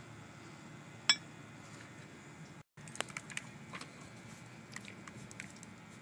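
A water level meter's reel of weighted tape gives one short, high beep about a second in. After a brief dropout in the sound, light metallic clicks and clinks follow as the tape and tools are handled at the well mouth.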